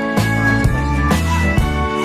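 Upbeat background music with a steady beat and a bass line that changes note about every half second.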